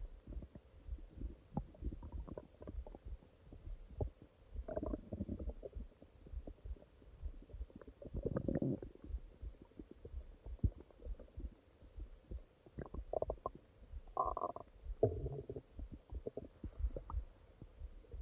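Human stomach growling and gurgling: a constant patter of small low pops, with longer bubbling gurgles about five seconds in, around eight to nine seconds, and several close together around fourteen to fifteen seconds.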